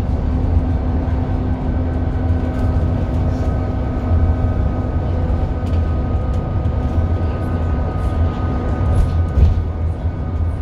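Alexander Dennis Enviro 400 double-decker bus under way: a steady low engine drone and rumble with a faint whine that comes in a couple of seconds in. There is a single louder bump near the end.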